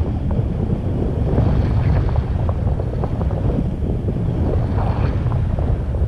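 Wind buffeting the microphone of a pole-mounted action camera on a tandem paraglider in flight: a steady low rumble with gusty flutter.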